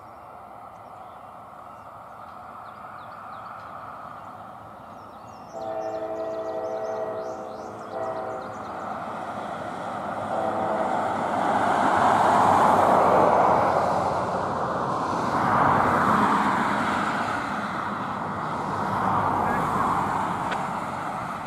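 CSX freight locomotive's chord horn blowing a crossing sequence: a blast at about five and a half seconds, a short one just after, and another beginning near ten seconds. The train's rumble then builds as it approaches and becomes the loudest sound in the second half.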